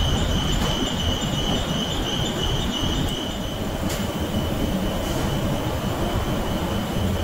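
Tannery machinery running: a steady rumble with a thin, high-pitched squeal like metal wheels on a rail. The squeal grows weaker after about four seconds, where there is also a single sharp tick.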